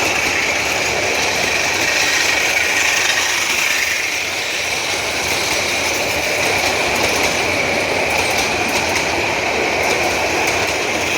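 Train running on its rails: a steady, loud running noise with a constant high ringing tone over it and faint ticking.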